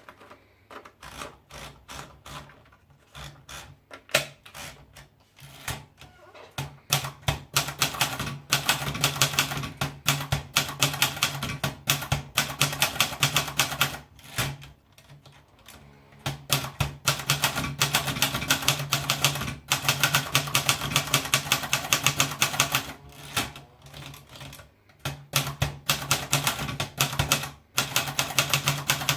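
Royal Royalite portable manual typewriter being typed on. The first few seconds have scattered single keystrokes. Then come quick, even runs of key strikes clacking against the platen, broken by short pauses.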